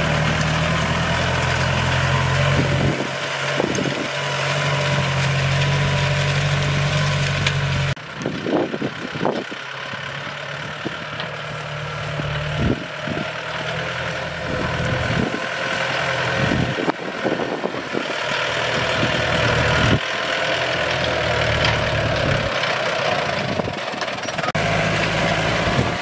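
Compact farm tractor's engine running under load while it drags a disc plow through dry rice stubble, with a steady engine drone and a few short clunks. The engine note shifts a few times.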